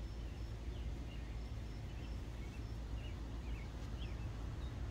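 Outdoor ambience: a steady low rumble with faint, scattered short chirps from small birds.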